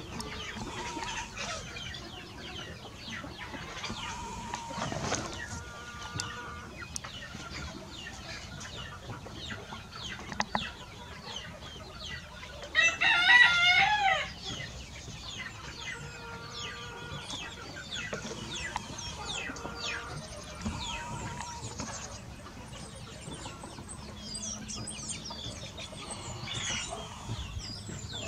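Chickens clucking on and off, with a rooster crowing once, loudly, about thirteen seconds in.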